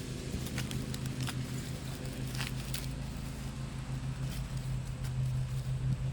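Scattered short scrapes and clicks of digging potatoes out of soil, over the steady low hum of lawn mower engines.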